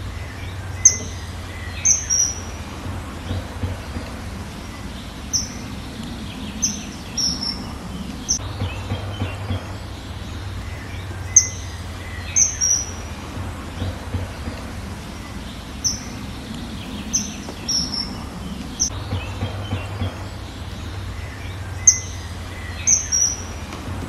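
Outdoor birdsong: short high chirps and quick falling notes come a few at a time every second or two, over steady background noise and a low hum. The same run of calls comes round again about every ten seconds.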